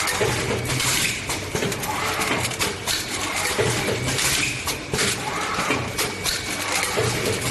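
Automatic ampoule blister packing machine running, a continuous clatter of clicks and knocks with a working cycle that repeats about every three seconds.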